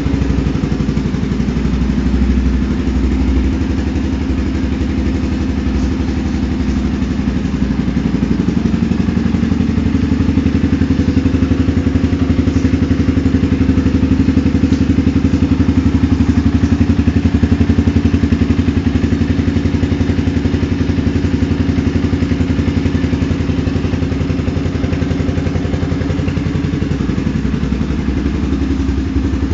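Yamaha Vixion Lightning's 150 cc single-cylinder four-stroke engine idling steadily.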